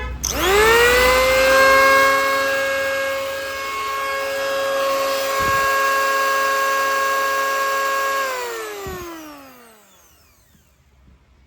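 Electric hand planer's motor switched on and spinning up to a steady high whine, then switched off about eight seconds in and winding down until it stops.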